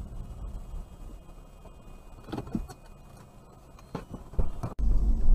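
Car driving, heard from a dashcam inside the cabin: a steady low road and engine rumble with a few short knocks in the middle and near the end. Just before the end it cuts abruptly to a louder, deeper cabin rumble.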